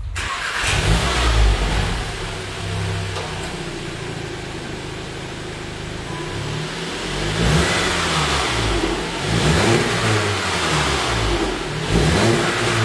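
Volkswagen Golf 7 R's turbocharged 2.0-litre four-cylinder on its stock, factory exhaust, free-revved while parked. Several rev blips rise and fall, with a quieter idle stretch in the middle.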